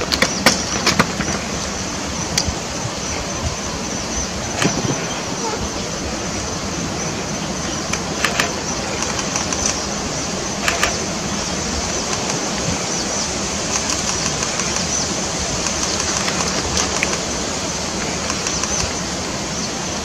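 Steady, even hiss of background noise, with a few sharp clicks scattered through the first half.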